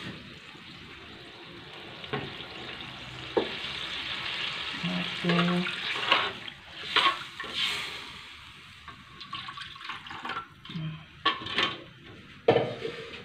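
Metal ladle stirring a thin, watery chilli-tamarind gravy in a steel wok: a steady watery hiss for several seconds, then scattered clicks and knocks of the ladle against the pan.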